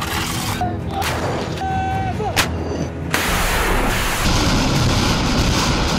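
Self-propelled howitzer loading, with a sharp metallic clank about two and a half seconds in. About three seconds in, a truck-mounted multiple rocket launcher fires a salvo: a sustained rushing blast lasting about three seconds.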